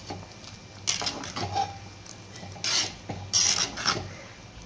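A steel spoon stirring thick curry in a clay pot. It scrapes against the pot about four times, and the strokes come with wet squelching. The loudest stroke comes about three and a half seconds in.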